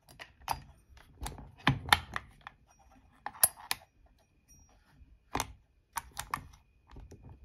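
Irregular light clicks and taps of metal parts handled by hand, as the Husqvarna 257 chainsaw's crankshaft is rocked to feel its bearings for play. No play is found.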